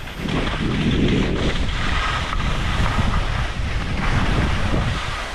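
Wind buffeting the phone's microphone: a loud, steady rush with a heavy low rumble.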